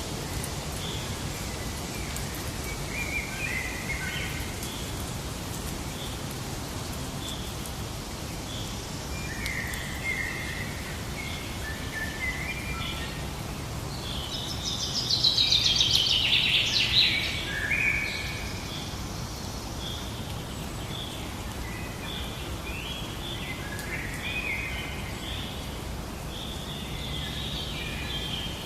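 Several birds calling and singing over a steady noisy outdoor background, with a short high note repeated about once a second. About halfway through comes a loud, dense burst of chattering song lasting roughly three seconds.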